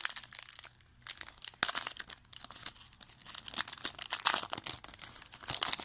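Crinkling and rustling of 1999 Fleer Focus football trading cards and their pack being handled. It comes as a dense, irregular run of small crackles.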